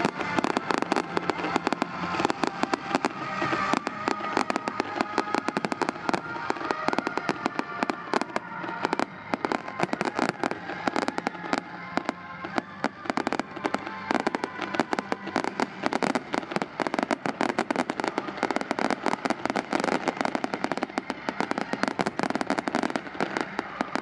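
Fireworks display going off without a break: many bangs and crackles a second from bursting shells and crackling stars.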